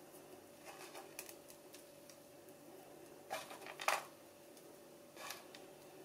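Hands kneading and shaping a ball of no-bake cookie dough studded with candy pieces over a plastic bowl: soft rustling and small clicks, with a louder brief scraping cluster about three and a half seconds in and another about five seconds in. A faint steady hum runs underneath.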